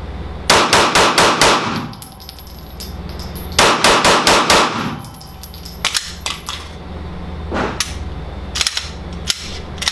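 Gen 5 Glock 17 9mm pistol fired in two quick strings of about five shots each, a couple of seconds apart: five-round rhythm drills. A few lighter clicks and clinks follow.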